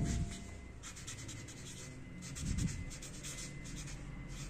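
Marker pen writing on paper: short scratchy strokes in quick groups as letters are formed, with brief pauses between words.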